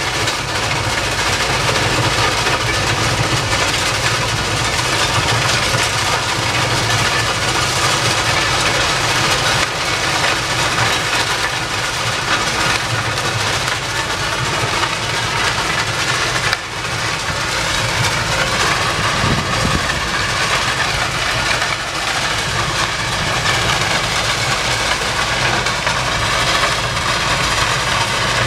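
Rail-mounted track sweeper at work: its engine runs steadily under a loud, constant rushing noise as the rotating broom sweeps the gravel ballast.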